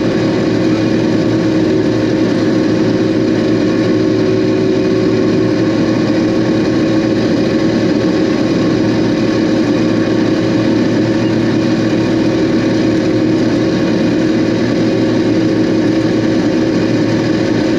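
Combine harvester running steadily while harvesting corn: a constant, even drone of engine and machinery with a strong unchanging hum.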